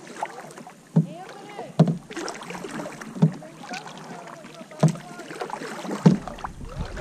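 Canoe paddling: a sharp knock or splash about every one to two seconds, six in all, with water and hull noise in between.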